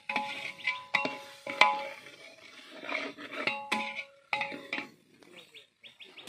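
Metal ladle stirring and scraping frying onions in a large aluminium pot, knocking against the pot's side again and again, each knock ringing briefly. Near the end come a few quick, light clinks.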